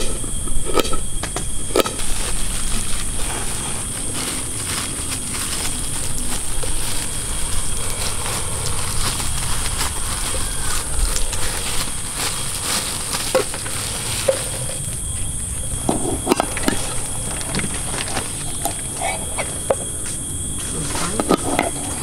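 Knife chopping vegetables on a metal camping pot lid, a run of sharp taps near the start and again in the last third, over a steady high insect chorus.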